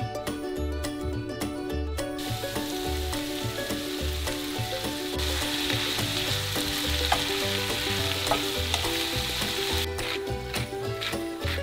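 Tomatoes and red pepper strips sizzling in a hot frying pan as a wooden spatula stirs them. The sizzle starts about two seconds in and stops near the end, over light background music.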